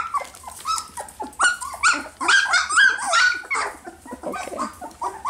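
A litter of young puppies yipping and whining over each other while playing: many short, high, rising-and-falling calls in quick succession.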